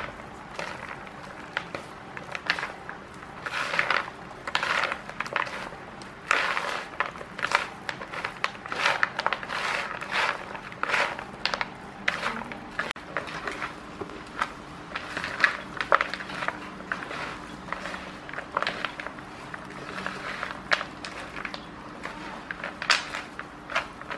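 Hands mixing and squeezing a peanut-and-strands stuffing in a plastic bowl: irregular crunching and rustling strokes.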